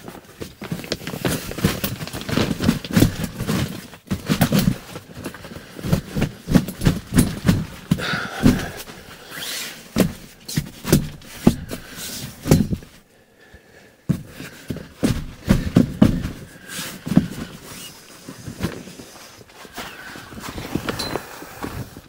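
HABUTWAY folding camping cot being set up: irregular clacks and knocks of its metal frame and legs being unfolded and pushed into place, with a pause of about a second just past halfway.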